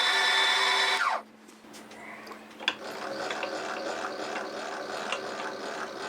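A milling machine's motor and spindle run steadily, then are switched off about a second in, the pitch falling as they wind down. Scattered mechanical clicks and rattles follow over a low steady hum.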